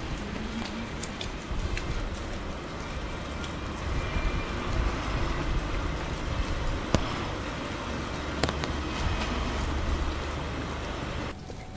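Low steady rumble of a vehicle under outdoor street noise, with two sharp clicks in the middle; the sound drops away suddenly near the end.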